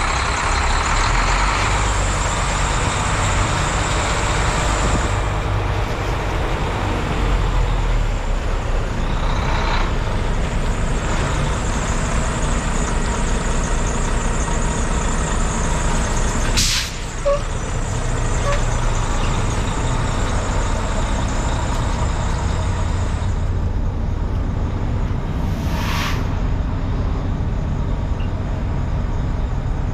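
Volvo VNL semi truck tractor's diesel engine idling steadily, under a steady high hiss that drops away late on. A sharp sudden sound comes a little past halfway, and a short hiss near the end.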